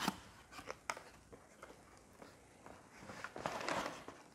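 Cardboard box being handled: a few sharp clicks and taps from the flaps, then near the end a longer rustling scrape as the servo controller is slid out of the cardboard packaging.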